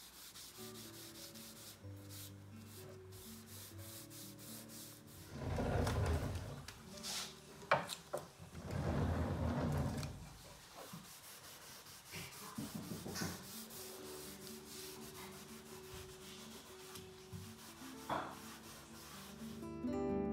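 A rag wiping gel stain across a solid wood tabletop: rubbing strokes on the wood, loudest in two stretches near the middle, with a few light knocks, over faint background music.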